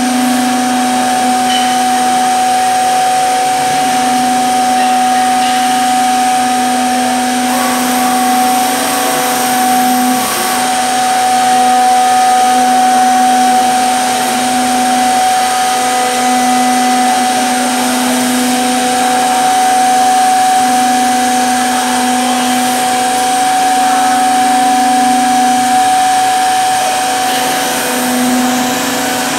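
Multi-spindle CNC mortising machine running, its spindle motors giving a steady whine of several constant tones over a rushing noise as they cut mortises into wooden rails.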